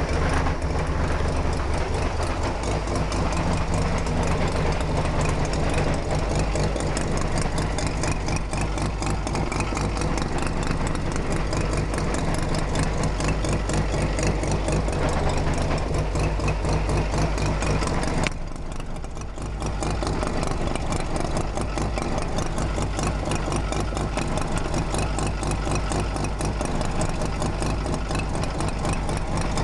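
Bridgeported 13B rotary engine of a Mazda RX-7 FC idling, with rapid, even pulsing and a clicking from the engine whose cause is not known. The sound dips briefly about eighteen seconds in, then carries on as before.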